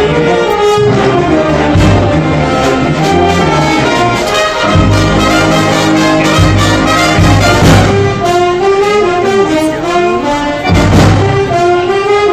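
Symphonic wind band playing: clarinets and saxophones with brass and a tuba bass line, the brass to the fore.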